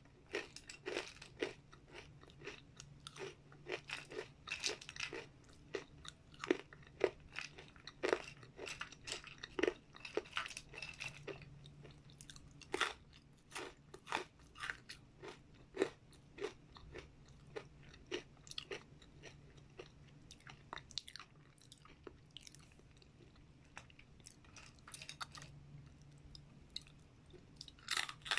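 Crispy dried vegetable chips being bitten and chewed close to the microphone: quick sharp crunches, thinning out in the second half and picking up again near the end.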